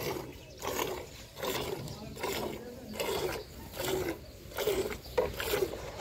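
Hand-milking a Murrah buffalo: streams of milk squirting from alternately squeezed teats into milk in a steel bucket, a rhythmic frothy swish a little over once a second.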